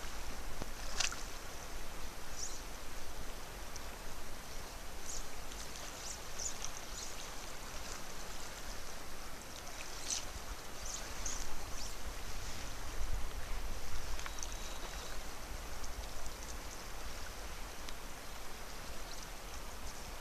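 Steady rush of a wide, fast river flowing over stones, with low rumble underneath and a scatter of short high chirps in the first half.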